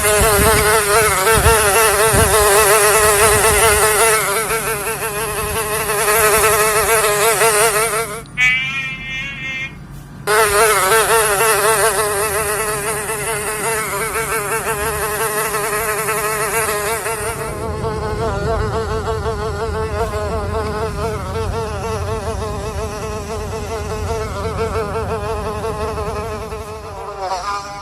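Fly buzzing in flight, a loud continuous hum that wavers in pitch. It drops out for about two seconds around eight seconds in, then picks up again.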